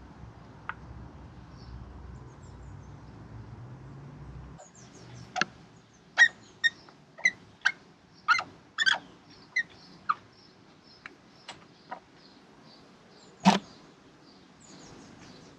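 Sharp clicks and clinks, about ten in six seconds, then one louder knock near the end, as hands work parts free around a motorcycle engine's cam cover. A low rumble fills the first few seconds, and faint bird chirps sound in the background.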